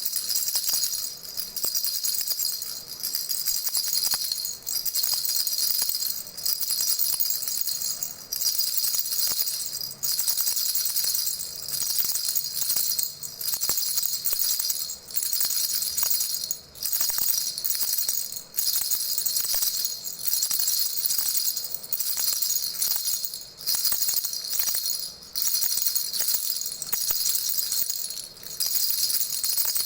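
Baby rattle shaken steadily, a bright high-pitched shaking sound that breaks off briefly about every two seconds.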